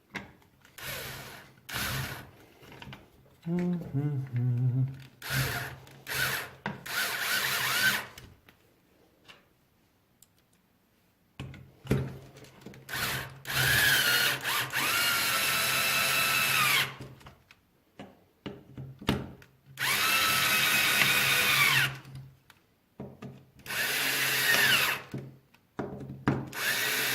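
Handheld power driver running M4 screws down into an RC truck's chassis and bumper mounting block, in a series of separate bursts with a steady motor whine, each starting and stopping. The early bursts are short; the later runs last two to three seconds each.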